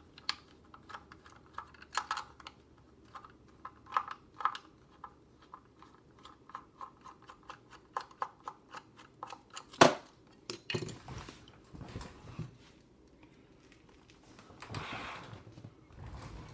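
Handheld multimeter's plastic housing being taken apart by hand: a run of small clicks and taps from the case and its screws, with one sharper knock about ten seconds in and a short scraping rustle near the end.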